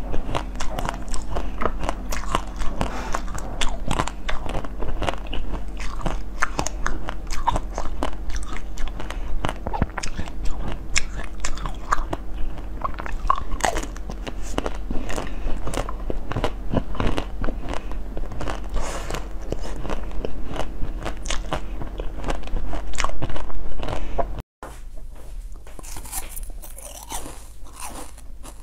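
Close-miked eating sounds: repeated bites and chewing of sweets, a dense run of quick sharp clicks and crunches. About 24 seconds in the sound breaks off and picks up again with biting into a chocolate-coated frozen ice pop.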